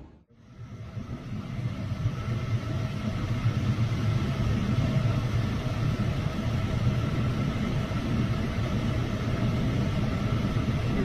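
Steady rush of airflow heard inside a glider's cockpit in flight, fading in just after a brief gap at the start, with a faint steady tone above it.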